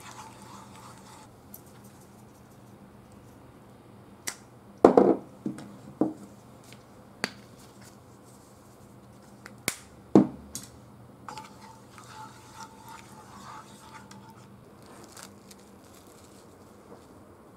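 Kitchen utensils knocking and clicking against a frying pan: a handful of scattered sharp knocks, the loudest about five seconds and ten seconds in.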